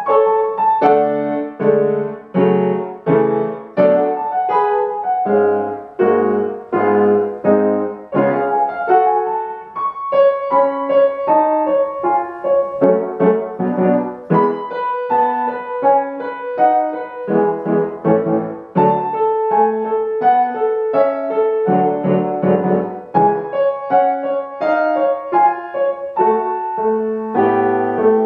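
Piano playing a polka: low bass notes alternate with chords in a steady beat under a bright, repeating melody.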